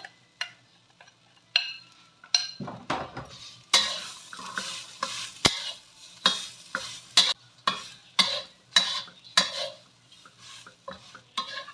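Metal spatula scraping and tossing seasoned grated coconut around a hot wok, in repeated strokes about two a second from a couple of seconds in, with a light sizzle under them. The coconut is being briefly stir-fried dry.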